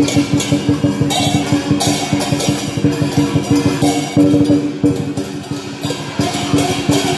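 Dragon dance percussion band playing: a drum beaten in fast, dense strokes with cymbals clashing again and again over it.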